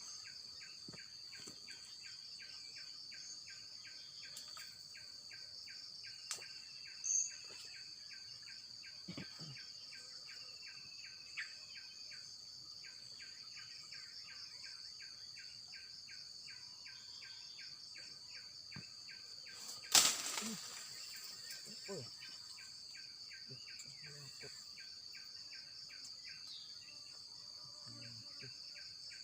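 Insects, crickets among them, calling steadily: a constant high drone with an evenly repeating chirp under it. One sharp knock stands out about twenty seconds in, with a few fainter taps elsewhere.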